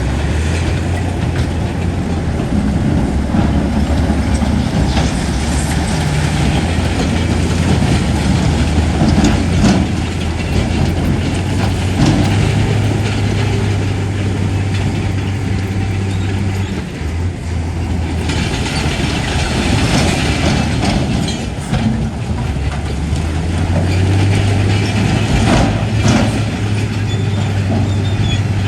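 Crawler bulldozer's diesel engine running steadily under load, with its steel tracks clanking and rattling.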